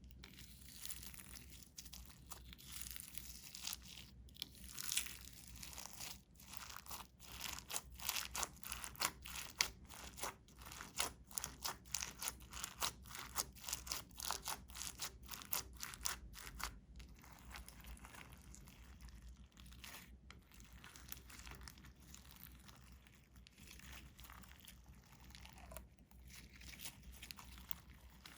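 Glitter slime being mixed and pressed by hand: sticky crackling with rapid pops and clicks, densest through the middle, then easing to a softer crinkle.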